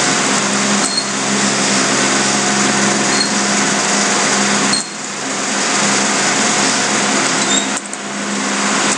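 Steady loud hiss with a low electrical hum from an open microphone, with a few faint keyboard clicks as code is typed.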